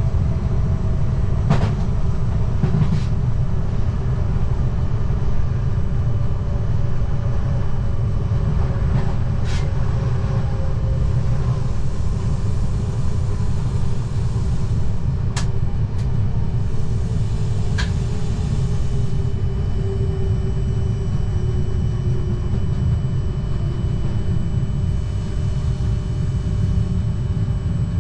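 Z 20500 double-deck electric commuter train running at speed, heard from the cab: a steady low rumble of wheels on track, a faint whine that slowly shifts in pitch, and several sharp clicks scattered through.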